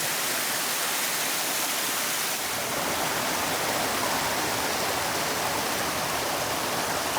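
Small waterfall cascades on a woodland creek: a steady rush of falling water, taking on a fuller, deeper rumble about two and a half seconds in.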